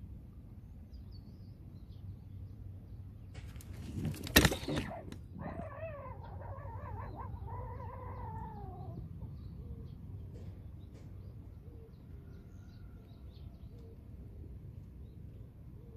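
A long float-fishing pole swept up hard to set the hook on a big fish: a sudden whoosh of pole and line tearing from the water about four seconds in. It is followed by a wavering pitched sound that falls away over a few seconds.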